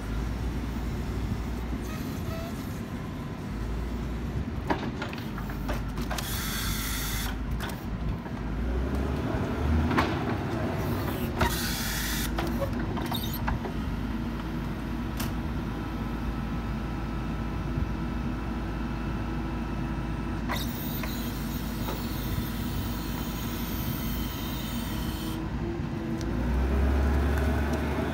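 Linde H70T forklift's LPG engine running as the truck drives and manoeuvres, with stretches of hiss over it and the engine revving up near the end.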